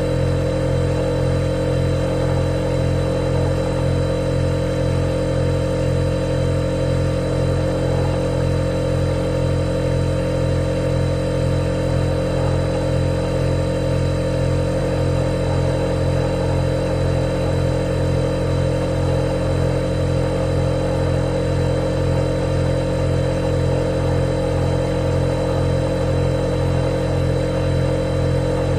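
Refrigerator humming steadily: a low drone with a few steady tones above it and a thin high whine, unchanging throughout.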